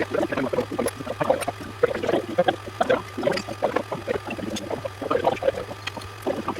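Irregular liquid gurgling and glugging over a low, steady hum.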